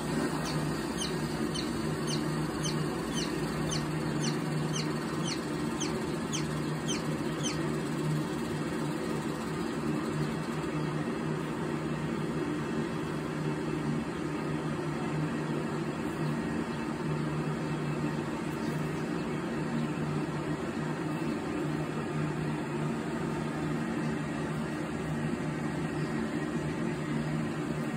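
A baby chick peeping: short, high chirps that fall in pitch, about two a second, which stop about nine seconds in. A steady low hum runs underneath.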